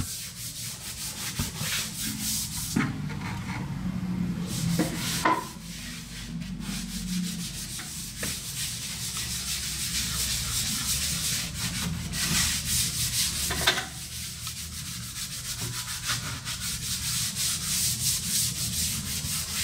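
A piece of red nylon buffing pad scrubbed by hand over a hardwood floor edge in quick back-and-forth strokes, working hardwax oil into the grain, with brief pauses and a couple of sharp knocks.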